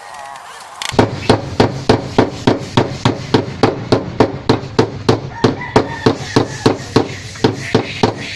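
Steady hammering: a long run of sharp, evenly spaced blows, about three a second, starting about a second in.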